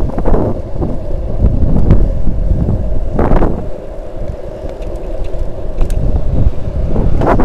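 Wind buffeting the microphone of a camera riding on a moving bicycle, in gusts, over a steady low rumble from riding on the asphalt path. The strongest gusts come about three seconds in and near the end.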